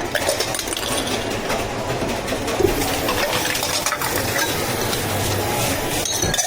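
Busy drink-making clatter behind a café counter: a steady run of small clinks and rattles over the shop's background noise.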